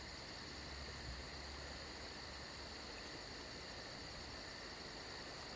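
Insects chirping in woodland: a faint, steady, high pulsing trill that keeps an even rhythm of several pulses a second.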